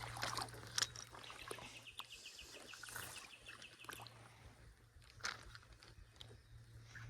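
A small bird's rapid trill, a quick run of short high notes lasting about two seconds, heard faintly outdoors. Scattered light clicks and knocks come through around it.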